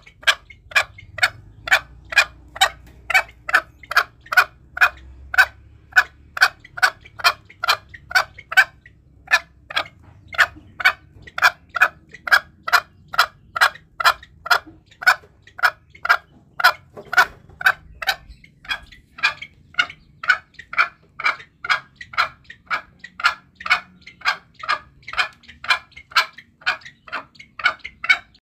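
Green junglefowl clucking in a fast, even series of short calls, about two to three a second, with a brief break about nine seconds in.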